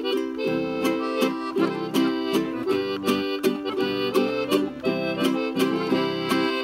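Instrumental folk music: a piano accordion and a small button squeezebox play a reedy melody over acoustic guitar and a small four-string guitar strummed in a steady rhythm.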